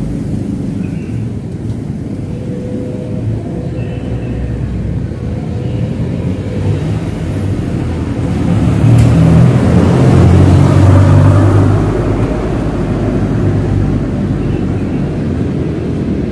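Engine rumble of motor traffic on the road. It swells to its loudest from about nine to twelve seconds in as a vehicle goes by, then eases off.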